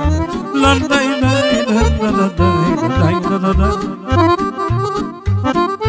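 Accordion playing a lively dance tune, with quick melodic runs over a steady bass beat.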